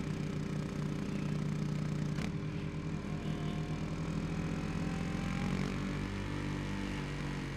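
KTM 250 Duke single-cylinder engine running steadily under way. A short click comes about two seconds in, and after it the engine note drops slightly.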